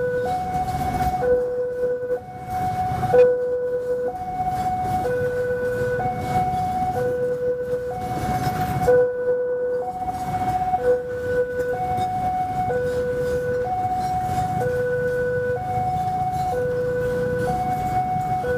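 Railway level-crossing alarm sounding a steady two-tone warning, a lower tone and a higher tone alternating about once a second, over the low rumble and clatter of a container freight train's flatcars rolling past.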